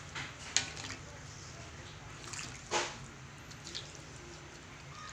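Thick rice porridge with shredded chicken stirred with a spoon in a large aluminium pot: wet sloshing and squelching, with a few sharp clicks of the spoon against the pot, the loudest near the middle.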